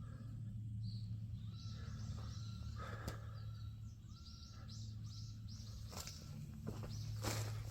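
Small birds chirping in a quick series of short, falling calls over a steady low hum, with a few sharp knocks near the end.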